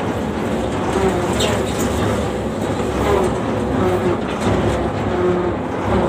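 Combine harvester's engine and machinery running steadily as the machine drives along, heard from the driver's platform.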